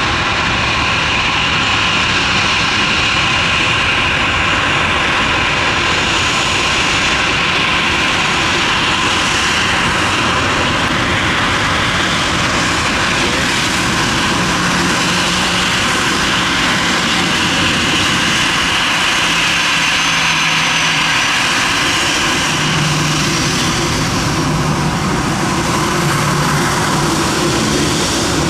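Aircraft engines running loud and steady: a broad rush with a high whine that swells and fades, and a low hum that shifts pitch about halfway through and again near the end.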